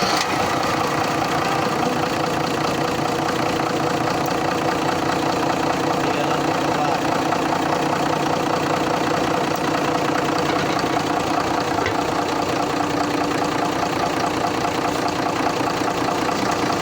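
Isuzu 6BB1 six-cylinder diesel engine of a TCM grab lift running steadily, just after it started. It now starts because the corroded neutral-switch contacts have been sanded clean.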